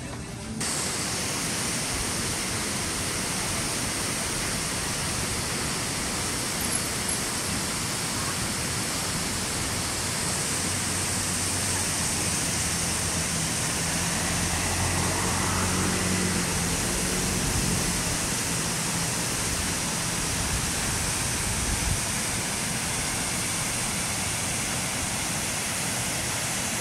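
Steady rushing of a waterfall, with a faint low hum in the middle.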